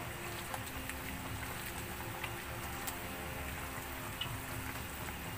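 Chicken tinola broth simmering in a wok: a steady bubbling hiss, with a few faint clicks of the metal ladle against the pan.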